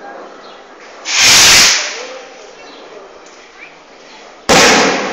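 Two loud bursts of hissing noise, the first about a second in and lasting under a second, the second starting suddenly near the end and fading away, over a background of people talking.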